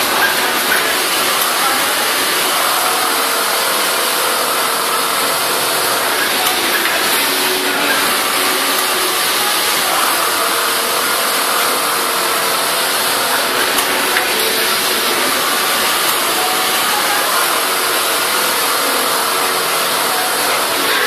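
Steady din of a garment sewing floor: many industrial sewing machines running together under a constant hiss, with a few light clicks.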